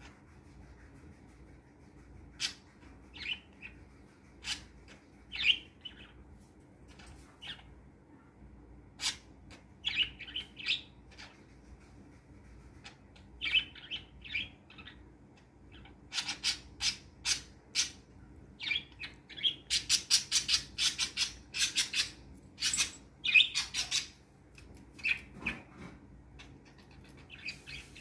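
Pet budgerigars (parakeets) chirping: scattered short, high chirps at first, then a quick run of rapid chirps in the second half, thinning out near the end.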